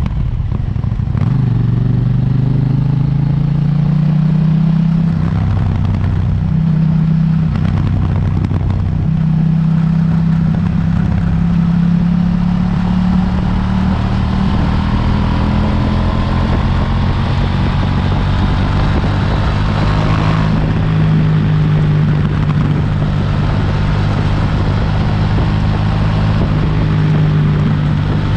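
KTM 790 Duke's parallel-twin engine through its stock exhaust, running under way. Its pitch rises and drops several times in the first ten seconds or so, then holds fairly steady.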